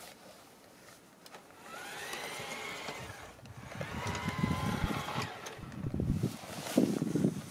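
An LGB garden-railway locomotive's electric motor and gears whining, the pitch rising and falling, with a rumble from the wheels and train that grows louder and is loudest about seven seconds in, as it runs close by.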